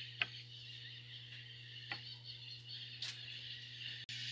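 A few faint clicks as small metal hole saw bits are set down on a wooden plank, over a steady low hum.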